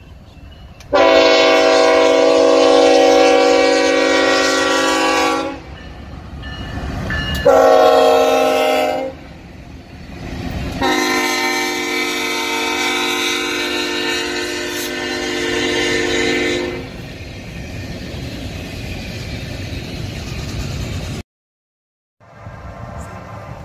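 Diesel locomotive air horn on an EMD SD70ACE, sounding a multi-note chord in three blasts: a long one, a short one, then a long one, the close of the grade-crossing signal. Between and after the blasts comes the rumble and clatter of the train's cars rolling past, and the sound cuts out for about a second near the end.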